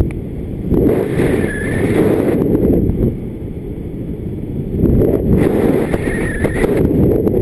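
Wind buffeting the microphone of a camera carried on a paraglider in flight: a loud, deep rumble that gusts stronger and weaker, easing for a couple of seconds midway.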